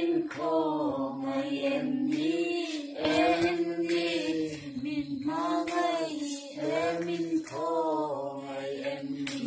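A young woman's voice chanting aloud from an open book in long, drawn-out, sing-song phrases with short breaks between them. A steady low drone runs beneath.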